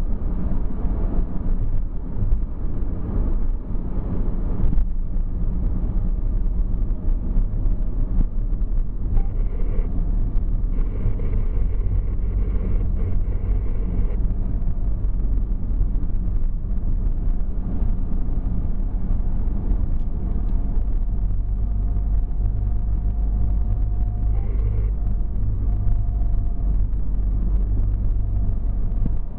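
Steady road and engine noise of a car driving on a motorway slip road, heard from inside the car: a continuous low rumble of tyres on tarmac.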